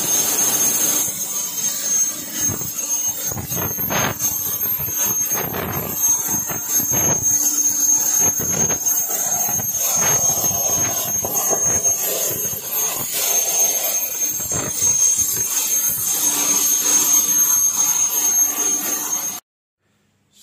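CNC plasma cutting machine cutting steel plate: a loud steady hiss with a high-pitched whine, with scattered knocks, stopping abruptly about a second before the end.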